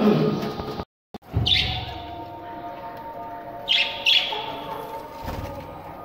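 Budgerigars chirping in an aviary: a few short, sharp chirps over softer chatter. The sound cuts out briefly about a second in, and there are a couple of low bumps.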